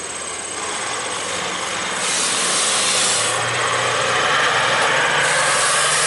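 Semi truck loaded with corn silage pulling onto a gravel road and passing close by: its diesel engine pulls under load and its tyres run on the gravel, the sound growing steadily louder as it nears.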